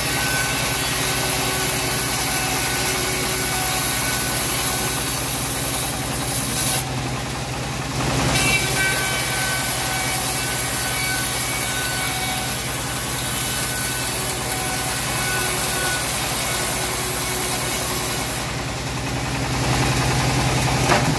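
Homemade band sawmill ripping a teak beam: the blade cuts steadily through the wood over the steady hum of the machine's motor. The high hiss of the cut drops out twice, about seven seconds in and again near the end, while the saw runs between passes.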